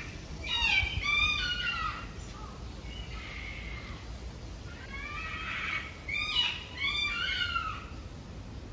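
Several birds calling together in two loud bouts of short, arched, overlapping notes, one about a second in and another from about five to seven seconds in.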